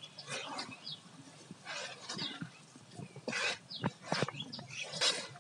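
A hand squeezing and mixing moist batter of grated bottle gourd and gram flour in a metal bowl, making wet squelching, rustling strokes about every second and a half.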